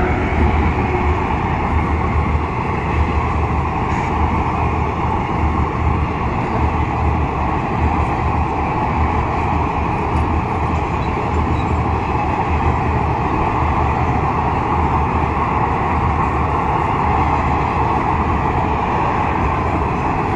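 Express passenger train hauled by a WAP7 electric locomotive passing at speed: a steady, loud rush and rumble of the coaches' wheels on the rails.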